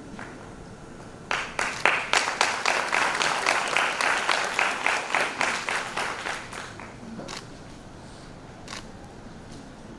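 Applause from a crowd, starting suddenly about a second in and dying away after about five seconds, followed by a couple of stray single claps.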